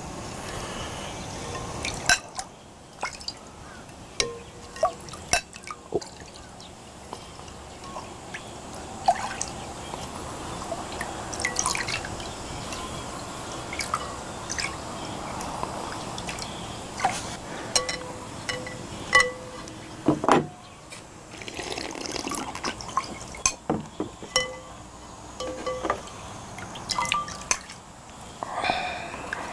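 Sujeonggwa (cinnamon punch) being ladled from a large glass bowl into small glass bowls: liquid pouring and dripping, with repeated clinks of a metal ladle and spoons against glass.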